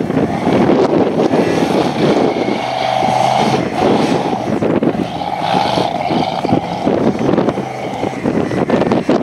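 Tube-frame off-road buggy's engine revving hard under load while climbing a steep dirt hill; the revs surge twice.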